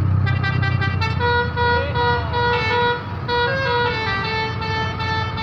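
Bus telolet 'basuri' musical air horn playing a melody of held notes that step and slide in pitch, over the low steady running of the bus's engine.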